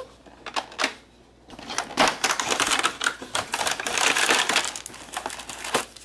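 Cardboard advent calendar door being torn open and a small plastic bag handled: a few light clicks, then dense crinkling and crackling from about a second and a half in.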